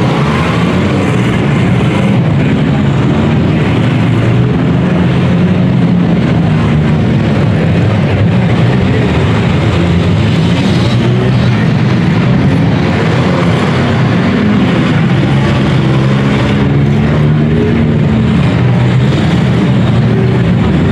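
Several compact demolition derby cars' engines running and revving together, loud and continuous, their pitches wandering up and down.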